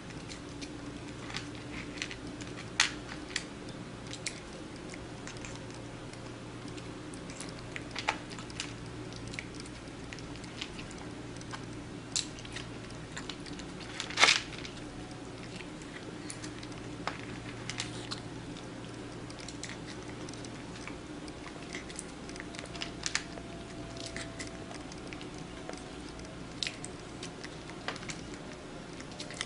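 Long-haired kitten biting and chewing food from a hand, small crunches and clicks scattered throughout, one louder crunch about halfway through, over a faint steady hum.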